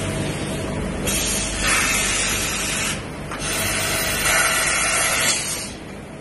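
Mazak Integrex 30 CNC lathe running with a steady hum, with two hissing blasts of about two seconds each inside the machine, the first starting about a second in and the second following just after a short break.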